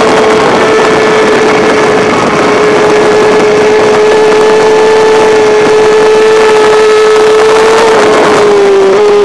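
Yamaha R6 inline-four sport-bike engine running hard at a steady pitch through a long corner, heard onboard with heavy wind rush on the microphone; the pitch dips slightly near the end.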